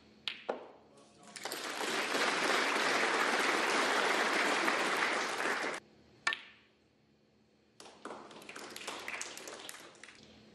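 Audience applause in a snooker hall, which stops abruptly about six seconds in. A single sharp click of a cue ball being struck follows, then softer crowd noise with a few ball clicks near the end.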